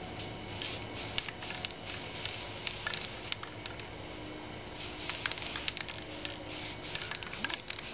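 Aerosol spray paint can hissing in short bursts, with scattered light clicks.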